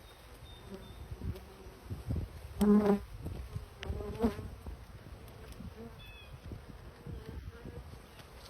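Honey bees from a swarm buzzing around the microphone, one flying past close and loud about three seconds in and another briefly a second later, over a low rumbling background.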